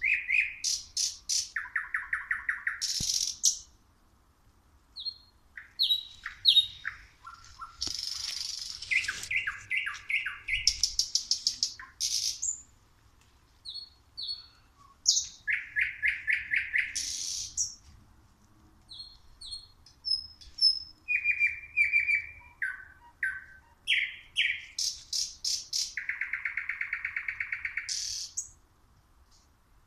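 Nightingale (Luscinia sp.) singing: phrases of fast-repeated notes, trills and clear whistles, each a few seconds long, separated by short pauses.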